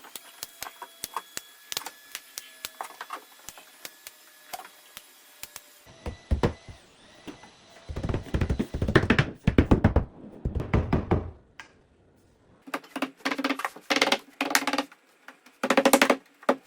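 Wooden door casing trim being handled and fitted against the frame: light clicks at first, then from about six seconds in, repeated knocks and thumps in clusters.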